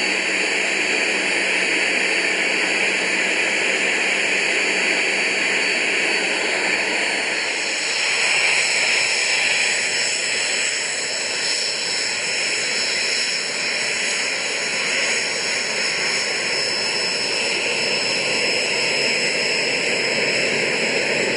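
Soko G-2 Galeb's Rolls-Royce Viper turbojet running steadily. It is heard first from inside the cockpit as a steady roar with a low hum and a high whine. About seven seconds in it changes to the jet's rushing, hissing noise heard from beside the runway.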